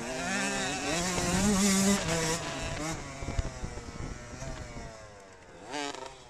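Motocross dirt bike engine heard from on board the moving bike, its revs rising and falling. It is loudest a second or two in and eases off toward the end, then revs up sharply just before the end.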